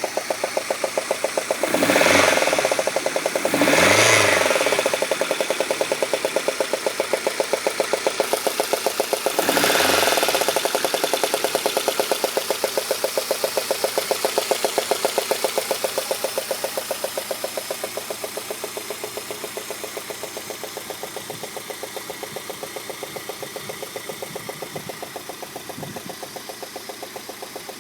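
Peugeot 106 GTI's 1.6-litre 16-valve four-cylinder engine idling with a rapid, regular knock. It is blipped three times, about two, four and ten seconds in, then settles back to idle. The owner traced the knock to a failed spark plug.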